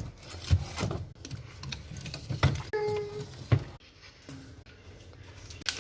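Scattered light knocks and clicks of items being handled and set down, with one short steady tone about three seconds in.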